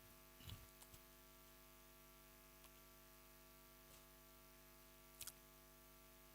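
Near silence: a faint steady electrical hum, with a couple of faint taps about half a second and five seconds in.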